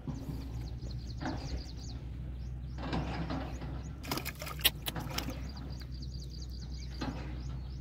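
A hooked fish splashing in the shallows at the bank as it is grabbed by hand, a few sharp splashes and knocks about four to five seconds in, over a steady low rumble.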